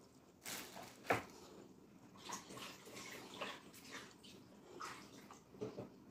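Close-miked wet eating sounds of a person chewing a mouthful of fufu with egusi soup: a loud sharp smack about a second in, then soft, irregular lip smacks and chewing clicks.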